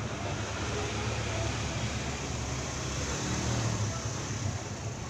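Steady background rumble and hiss with no distinct knocks or clicks, of the kind made by nearby road traffic.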